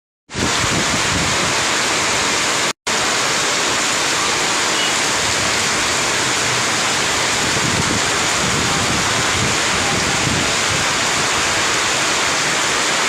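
Heavy tropical downpour driven by strong wind: a dense, steady hiss of rain with gusts buffeting the microphone. It starts abruptly after silence and cuts out once, briefly, near three seconds in.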